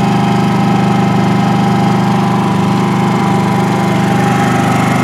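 Honda EU2000i inverter generator's small single-cylinder four-stroke engine running steadily at an even speed.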